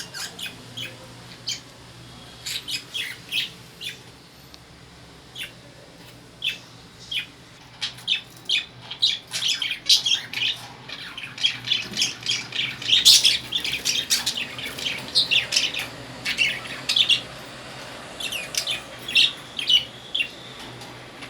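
Caged lovebirds giving short, shrill chirps and squawks in quick irregular runs, busiest around the middle.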